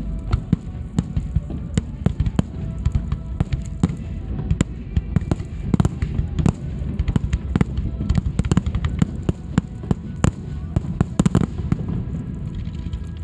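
Aerial fireworks going off in quick succession: a dense run of bangs and crackling, heaviest about ten to eleven seconds in and thinning out near the end.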